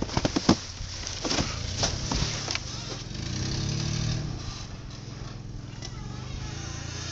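Truck engine running steadily, with a string of sharp clicks in the first two and a half seconds and a louder hum swelling about three to four seconds in.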